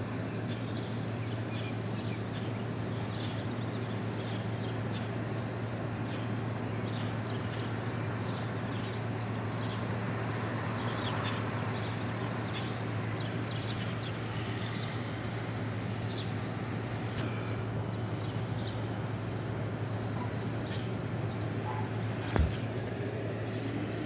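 Outdoor background of a steady low hum and road noise from distant traffic, with small birds chirping on and off throughout. A single sharp click comes about 22 seconds in.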